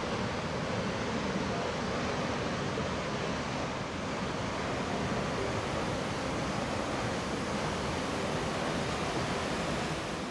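Steady roar of Ram Falls, the water's rush an even, unbroken noise.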